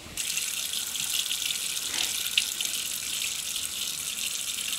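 Bathroom sink faucet running, water pouring steadily into the basin; it starts abruptly just after the start.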